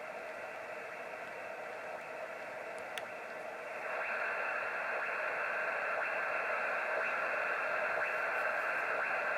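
Hiss and static from an HF amateur radio receiver tuned on the lower bands, heard through its narrow audio filter. A single click about three seconds in, then a stronger noisy signal comes up about four seconds in and holds steady.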